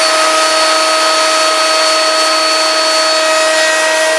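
Table-mounted router with a corner lock cutter running at full speed while a pine drawer side is fed past it, cutting the groove for the drawer bottom. A steady high whine over the rushing noise of the cut.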